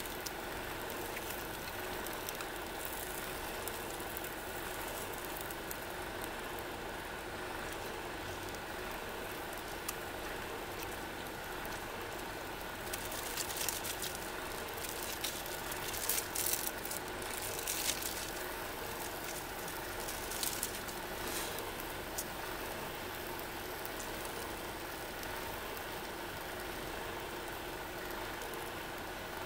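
Steady hiss and hum of a single-burner camping gas stove heating a small frying pan of frozen takoyaki, with a few short bursts of sizzling from the pan about halfway through.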